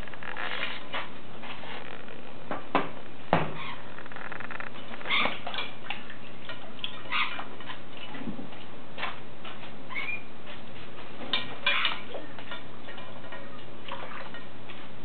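African grey parrot bathing in a shallow ceramic bowl of water: irregular splashing and wing-flapping in the water, with a few louder splashes against the bowl.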